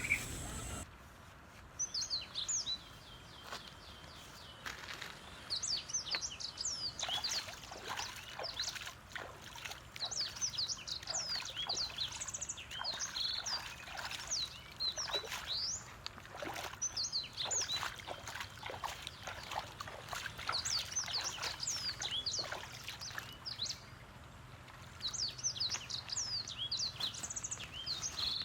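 Small birds chirping: many short, quick twittering calls that sweep up and down in pitch, coming in scattered flurries over a faint outdoor background.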